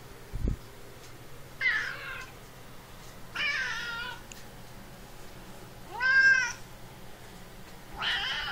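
Peach tabby cat meowing four times, roughly every two seconds; the third meow is the loudest, rising and then falling in pitch. A short low thump about half a second in.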